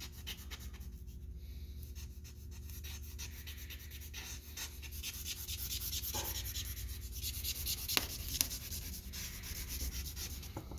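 Vine charcoal scratching and rubbing across drawing paper in quick repeated shading strokes, louder from about five seconds in, with one sharp tick near eight seconds.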